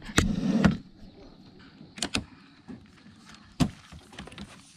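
Folding steel-framed camp wagon being pulled over gravel: its handle and frame clank and rattle in a handful of sharp knocks, with a low rumble of the wheels rolling in the first second.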